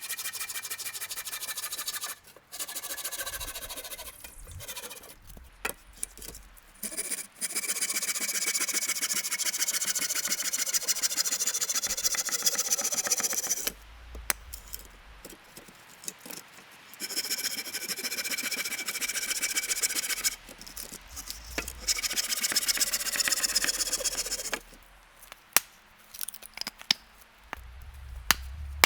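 Wood being sawn in several runs a few seconds long, separated by short pauses, followed by a few scattered knocks near the end.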